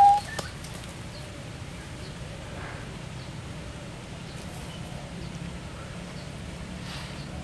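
The tail end of a loud male Indian peafowl call, cut off a moment after the start, then a steady low background hum with a few faint ticks.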